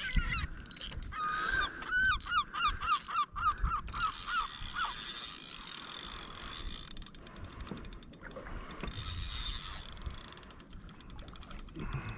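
A gull calls a rapid series of about a dozen repeated notes, about three a second, over the first five seconds. Later a fishing reel clicks in stretches as line is wound in on a hooked bass.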